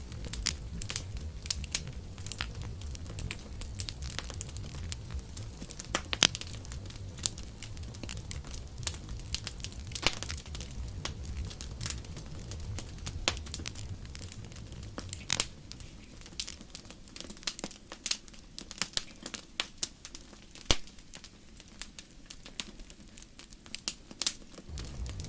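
Campfire crackling, with irregular sharp pops of burning wood over a low rumble that fades about two thirds of the way through.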